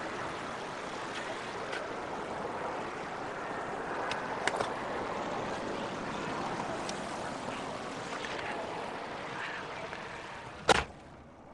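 Steady city street traffic noise with a few small clicks, then near the end a single loud thud as the taxi's rear door is slammed shut.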